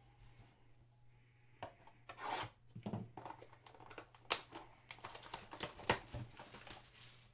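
A cardboard trading-card box is torn open and its plastic-wrapped pack pulled out, a run of tearing and crinkling with sharp crackles starting about a second and a half in.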